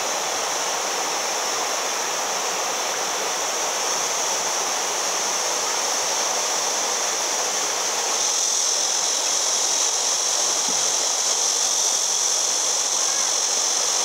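Steady rush of flowing water, a little louder from about eight seconds in.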